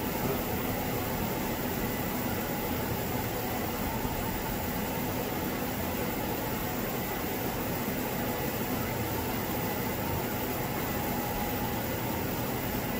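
Steady whirring hum and hiss of cooling fans on lab equipment, with a few faint steady tones running through it.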